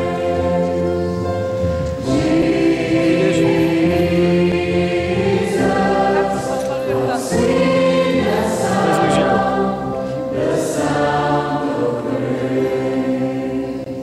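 Background music: a choir singing held chords.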